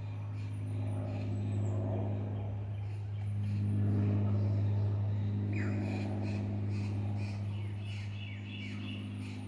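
Birds chirping, with short falling calls about halfway through and a cluster of chirps near the end, over a loud, steady low mechanical hum.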